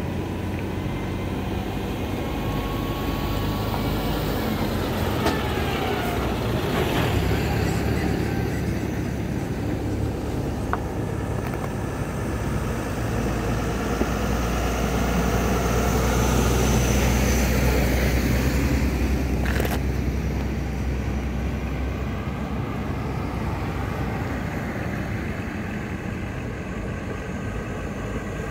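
Diesel engine of a heavily loaded truck running as it approaches at low speed, a deep steady drone that swells to its loudest about halfway through and eases off toward the end.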